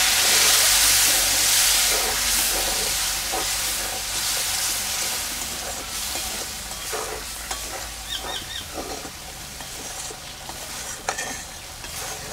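Spice paste sizzling loudly in a hot metal kadai just after a splash of water is added, the hiss slowly dying down as the masala is fried down. A metal spatula stirs and scrapes the pan, with several scrapes in the second half.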